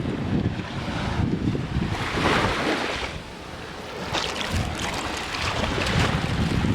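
Surf washing onto a beach in surges, with wind buffeting the microphone.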